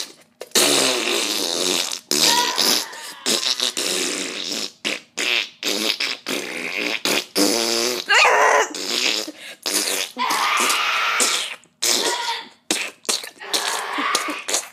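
A long string of loud fart noises, one after another with short gaps, some of them rising in pitch.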